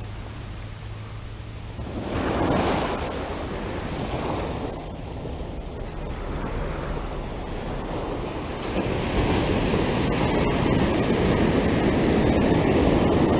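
Ocean surf breaking and washing up the beach: a wave swells about two seconds in, and a bigger, longer wash follows from about nine seconds on.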